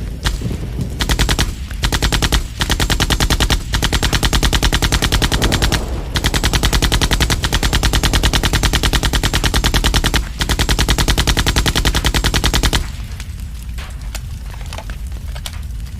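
M60 7.62 mm general-purpose machine gun firing long, rapid automatic bursts separated by a few short breaks. The firing stops about 13 seconds in, leaving a lower steady noise with occasional ticks.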